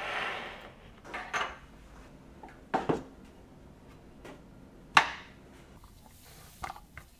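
Hands handling a plastic tub and small diecast parts on a wooden worktop: a brief rustle, then several sharp knocks and clicks, some in quick pairs, the loudest about five seconds in.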